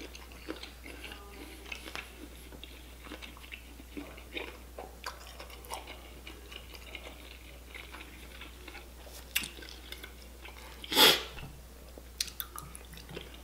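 Close-miked chewing of deshelled seafood boil: soft, wet mouth sounds with small clicks and smacks, and one louder, brief wet sound about eleven seconds in.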